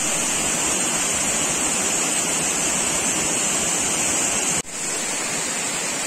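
Waterfall and rocky cascade rushing steadily. The water sound drops out for an instant about four and a half seconds in, then goes on a little quieter.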